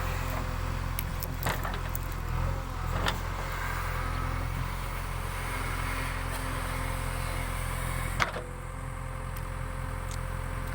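JCB 3DX backhoe loader's diesel engine running steadily, with a few sharp metallic knocks from the machine, the loudest about eight seconds in.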